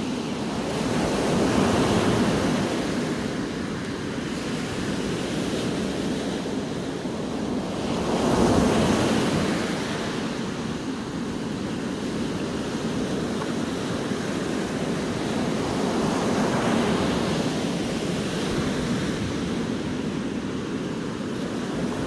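Sea surf: waves breaking and washing up onto the beach as a continuous rushing wash. It swells three times as breakers come in, loudest about two and nine seconds in.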